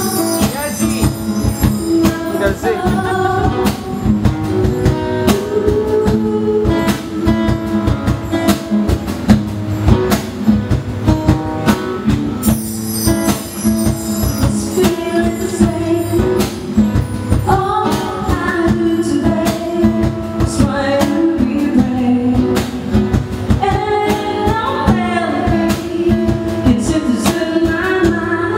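Live acoustic band: a woman singing into a microphone over acoustic guitar and cajon, with a shimmer of bar chimes about twelve seconds in.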